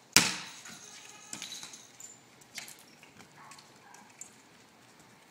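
A single sharp, loud thump just after the start, dying away over about half a second, then a few faint scattered knocks and clicks.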